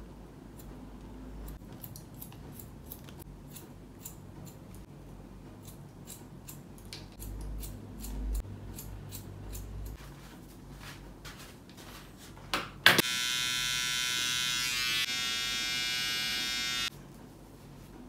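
Barber's scissors snipping hair over a comb in a quick run of sharp snips. About thirteen seconds in, an electric hair clipper clicks on, runs with a steady buzz for about four seconds, then cuts off suddenly.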